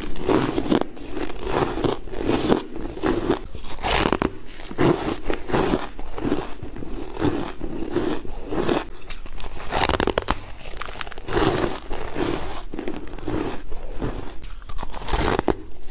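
Close-miked crunching and chewing of a block of powdery, snow-like frozen ice, in an irregular run of crisp crunches, a few a second.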